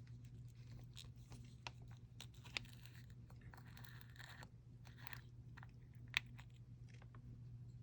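Faint scattered clicks and crinkles of small plastic chrome-powder jars and their packaging being handled, over a steady low hum. The sharpest clicks come about two and a half seconds in and about six seconds in.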